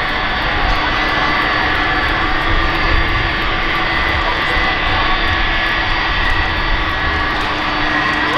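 Boeing 747-400 freighter's four jet engines running at taxi power, a steady rush of engine noise with a constant whine over it.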